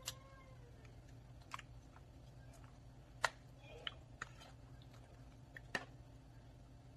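A white plastic spoon stirring thick, creamy fruit salad in a plastic mixing bowl: a few scattered sharp clicks and taps as the spoon knocks the bowl, over a faint steady low hum.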